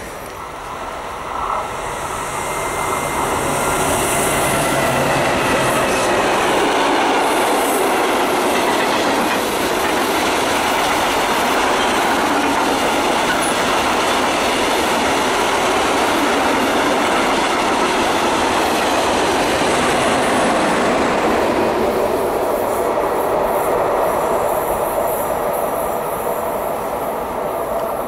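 A long freight train of open goods wagons rolling past, with a steady noise of wheels on the rails. It fades over the last few seconds as the end of the train goes by.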